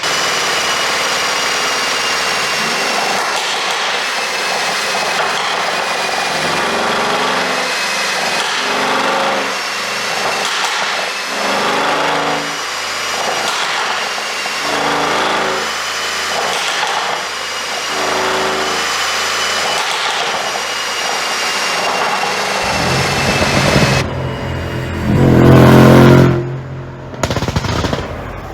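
Mercedes-Benz S500's twin-turbo V8 being revved, its exhaust crackling and popping in rapid strings as the revs rise and fall: the pops and bangs of an ECU pop tune. The loudest, deepest burst comes near the end before the sound cuts off.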